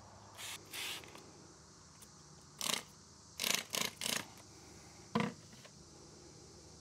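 Several short hissing squirts from a hand spray bottle, in small groups, spraying soapy leak-test solution onto a seam of a pressurised battery pack. About five seconds in there is a deeper single knock.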